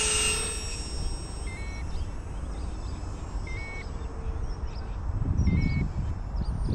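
Twin 30mm brushed electric ducted fans whining at high throttle, then winding down within the first second or so. A radio transmitter's low-voltage alarm then gives a few short beeps, set off by the battery voltage sagging while the fans were revved, over a low rumble that swells near the end.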